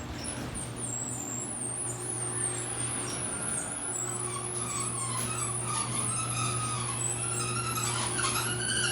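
Half-horsepower LiftMaster Chamberlain garage door opener running to close the door: a steady motor hum with wavering high squeaks that grow louder toward the end.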